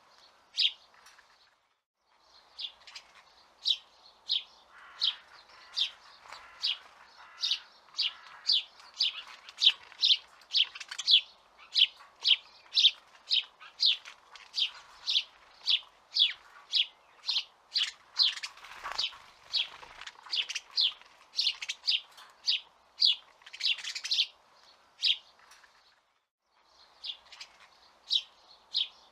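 A bird chirping over and over in short, sharp notes, about two a second, with brief pauses just after the start and a few seconds before the end.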